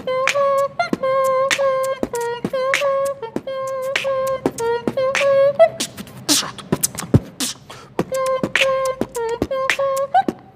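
Beatboxing: a held vocal note at one steady pitch under a fast pattern of sharp clicks and snare-like hits. The note drops out for about two seconds midway while the percussion carries on, then comes back.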